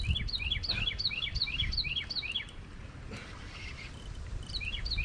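A songbird singing a fast series of repeated chirping phrases, about three a second. It pauses for about two seconds in the middle, then starts again, over a low rumble.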